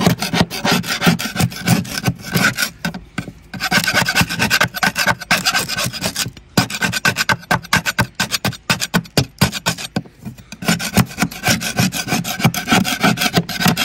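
A hand tool working back and forth against failed coating on a fibreglass boat deck, stripping it back to solid laminate, in quick repeated strokes several a second. The strokes pause briefly about three, six and ten seconds in.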